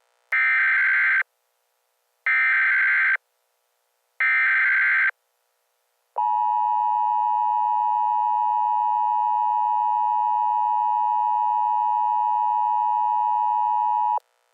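Emergency Alert System header: three one-second bursts of rapid digital data tones about a second apart, then the steady two-tone EAS attention signal held for about eight seconds and cut off sharply, marking the start of a new alert.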